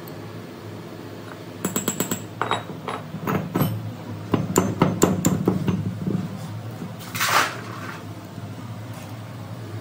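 Metal parts being handled and knocked together: a quick run of light clinks followed by heavier, irregular clanks, then a short scraping rush, over a steady fan hum.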